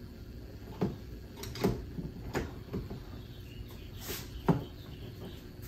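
A new window seal molding being pressed by hand onto the top edge of a Honda Civic door: a series of about seven short, irregular plastic knocks and clicks as it seats, the loudest about four and a half seconds in.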